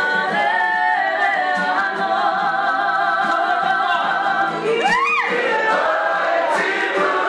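Kapa haka group singing together unaccompanied, many voices holding long notes in harmony. About five seconds in, one voice sweeps up high and back down over the group.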